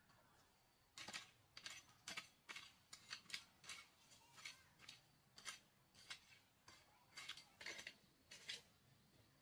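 A metal hoe blade scraping and chopping into stony, gravelly soil in a quick, irregular run of short strokes, about two a second, starting about a second in.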